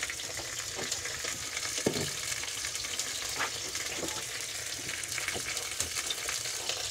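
Pieces of pike frying in oil in a hot frying pan: a steady sizzle, with a few faint knocks.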